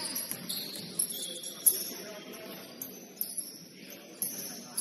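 Basketball game on a gym court: sneakers squeaking in short, high squeals on the hardwood, with several sharp knocks of the ball bouncing, the loudest about a second and a half in.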